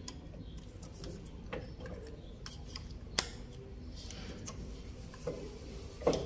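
Scattered plastic clicks and rattles as wiring-harness connectors are handled and pushed onto a car's engine computer, the sharpest click about three seconds in.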